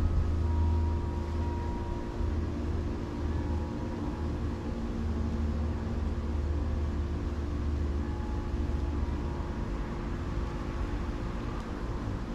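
A steady low machine hum with several steady tones over it, running evenly throughout.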